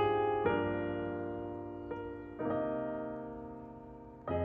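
Slow, gentle piano music: chords struck about a second apart and then left to ring and fade for a couple of seconds each.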